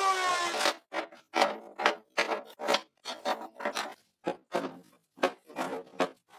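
Electric hand planer's motor running down with a slightly falling pitch and stopping, followed by a string of short wooden knocks and clunks, about two a second, as log sections and wood pieces are set down and handled on the workbench.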